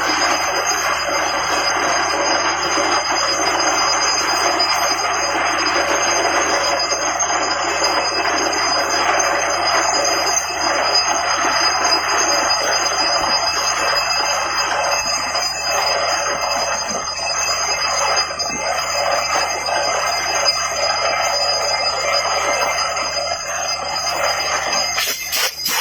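Borewell drilling rig running: a loud, steady metallic clatter and ringing with a thin, steady high whine over it. Near the end a sharp knock comes, and the noise drops quieter.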